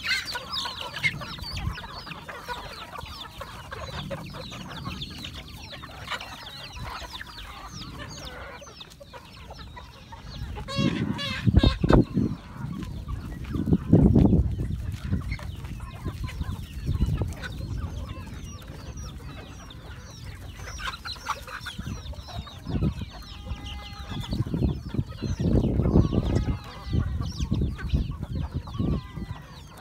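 A flock of free-range native chickens, hens and roosters, clucking and chirping constantly as they feed, with several louder low rumbles about a third of the way in and again near the end.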